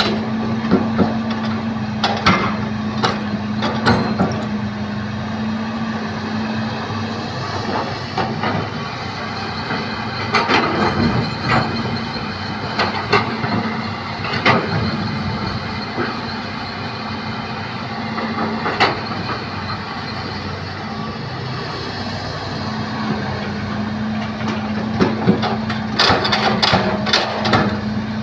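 Hitachi excavator loading soil into a dump truck: a heavy diesel engine running steadily, with sharp knocks and clanks at irregular intervals.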